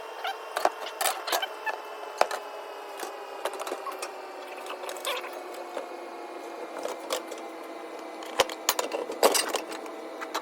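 Hand tools and metal parts clicking and knocking irregularly while work is done on an electric cabinet unit heater. Behind them is a steady hum whose pitch slowly falls.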